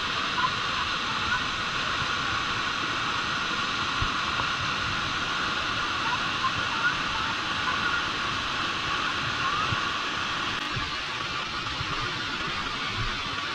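Steady rush of falling water from Dry Falls, a waterfall on the Cullasaja River: an even, unbroken hiss with no change in level.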